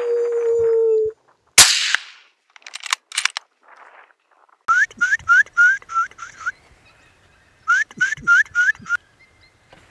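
A steady whistled tone stops about a second in, then a single loud rifle shot rings out. Later come two runs of short rising whistled chirps, about seven and then five, a few per second.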